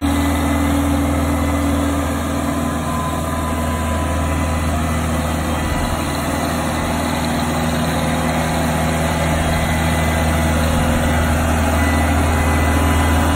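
Engine-powered PowerBoss Atlas ride-on dry sweeper running steadily while sweeping along a street curb: a constant low engine note under a dense hiss from the brooms and vacuum fan. The sound grows slightly louder toward the end.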